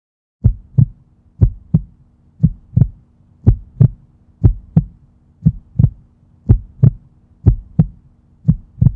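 Heartbeat, a deep lub-dub pair of thumps about once a second, nine beats in all, over a faint steady hum. It starts about half a second in.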